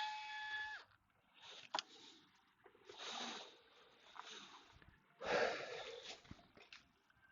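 Handling noises from the parts of a mini PC being taken apart: a steady-pitched squeal that stops about a second in, then several short scraping and rustling noises, the loudest about five seconds in.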